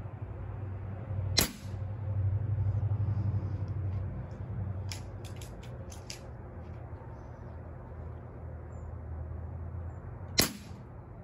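Two shots from a Gamo Raptor .177 break-barrel air rifle, about nine seconds apart, each a single sharp crack. A few faint clicks come between them, over a low steady hum.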